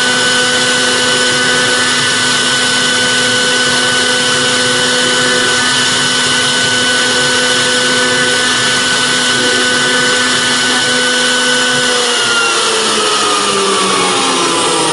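CNC router spindle engraving a brass plate: a steady high-pitched machine whine over a hiss. About twelve seconds in the whine begins to fall in pitch as the spindle slows down.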